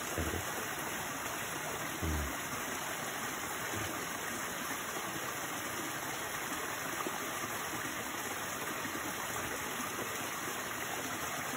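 Stream water running into a small pool, a steady rushing hiss. A brief low thump about two seconds in.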